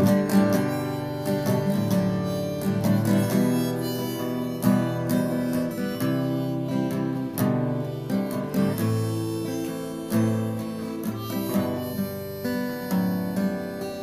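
Acoustic guitar strummed and picked, with a harmonica playing the melody over it and no singing. The music slowly grows quieter toward the end.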